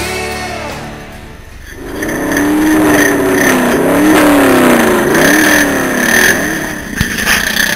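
Mini dune buggy engine revving, its pitch climbing and dropping several times.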